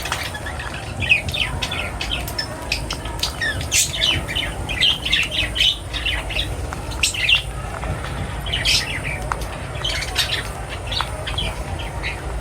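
Small birds chirping, many short calls in quick clusters, busiest in the middle, over a steady low rumble.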